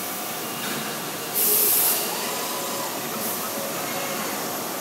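SOCO SB 80 all-electric CNC tube bender running through a bend, over steady factory noise. A short, loud hiss comes about one and a half seconds in, and a fainter one a little past halfway.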